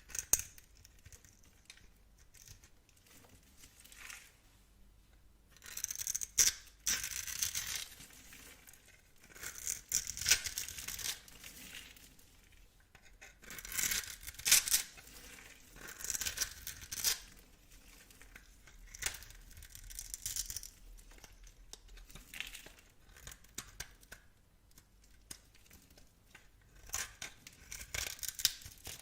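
A knife cutting and scraping through dry soap: crisp, crackling strokes in bursts of one to two seconds, about six times, with short pauses between them.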